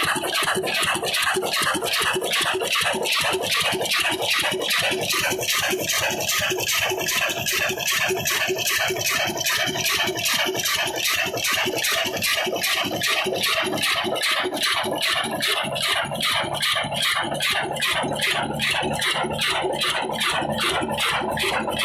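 Old 22 HP black single-cylinder diesel engine running steadily, its firing and valve gear beating out a fast, even clatter.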